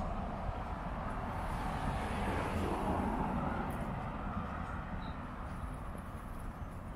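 Cars passing on a city street: the hiss of tyres on pavement with a low engine rumble, swelling as a car goes by a few seconds in, then slowly fading.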